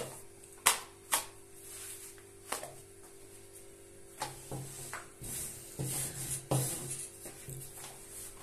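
A long thin wooden rolling pin (oklava) knocking on the counter and a thin sheet of dough flapping and slapping down as the sheet is rolled out, wound onto the pin and lifted, in a string of irregular sharp taps.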